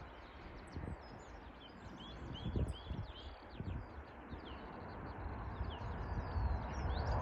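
Small birds chirping repeatedly, with wind gusting on the microphone in low thumps. A broad rushing rumble, the approaching jet airliner, swells louder near the end.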